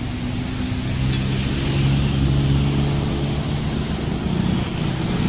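Large intercity bus driving past, its diesel engine drone swelling to a peak about two seconds in and then easing off, over tyre and road noise.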